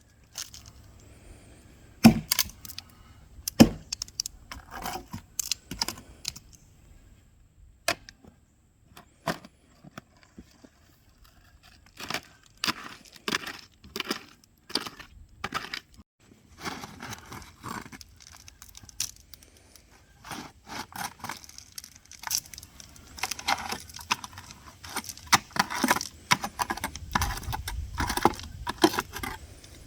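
Hand digging in stony soil: a shovel blade scraping and clinking against gravel in scattered sharp strokes, coming thicker in the second half, with a low rumble entering near the end.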